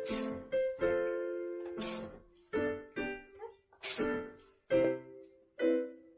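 Piano-like keyboard music: single notes struck one after another, a few a second, with a sharper hit about every two seconds.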